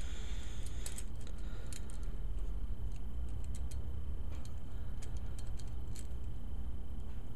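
Light, irregular clicks and ticks of ceramic bearing balls snapping into a hub bearing's retainer by hand, over a steady low hum.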